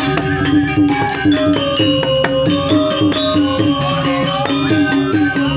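Balinese gamelan music: a quick succession of ringing pitched notes from tuned percussion over a steady low beat.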